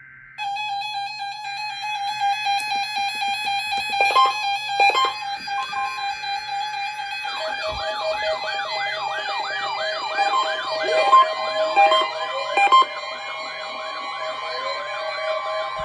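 Synthesized electronic music that starts abruptly with sustained tones and a couple of sharp hits, then adds a fast siren-like wailing sweep repeating about two to three times a second.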